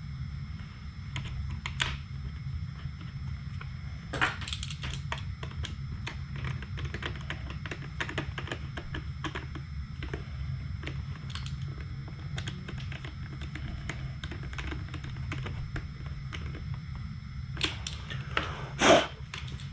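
Many small, irregular clicks and taps of hand tools and plastic parts as a cornering light and its bracket are screwed onto a motorcycle's plastic body panel, over a steady low hum, with a few louder knocks about four seconds in and near the end.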